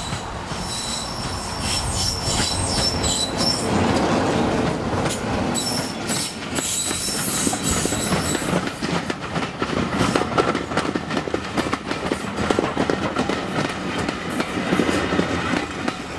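BR Class 33 diesel locomotive D6535 passing, its Sulzer eight-cylinder engine running, followed by a rake of coaches clattering over the rail joints in a long run of sharp clicks. High-pitched wheel squeal sounds in the first few seconds. The sound fades near the end as the last coach goes by.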